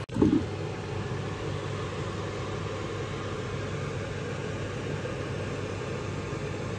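Steady low rumble and hiss from the stove where a pot of pork sinigang is simmering, with one short thump a fraction of a second in.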